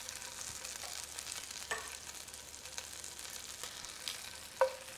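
Oil sizzling and crackling steadily in the hot pan of fried chicken wings, with a couple of short clinks, the sharpest near the end.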